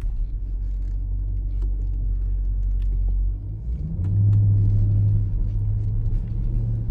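Dodge Durango SRT's 6.4-litre HEMI V8 and road rumble heard from inside the cabin while driving: a steady low drone that dips briefly about three seconds in, then comes back louder and deeper from about four seconds in.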